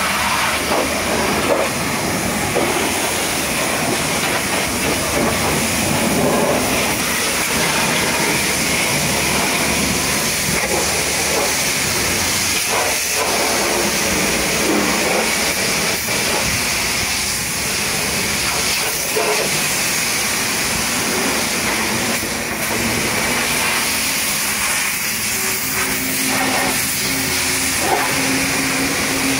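High-pressure washer jet spraying water onto a truck, a steady loud hiss throughout. A steady low hum joins near the end.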